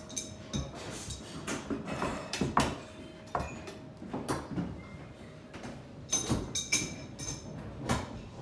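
Irregular metallic knocks and clicks of tools and copper pipework being handled in a plumbing workshop, coming more often in the last couple of seconds, over a faint steady hum.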